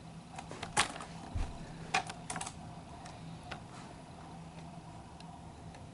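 Several light clicks and taps in the first half, the loudest about a second in, with one soft low thump, over a faint steady hum.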